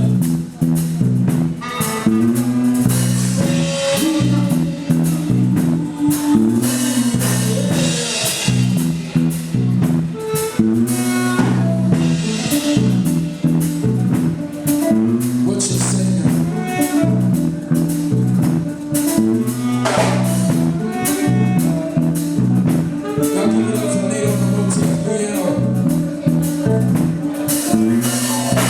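Live band playing a steady soul groove, with drum kit, a repeating bass line and guitar.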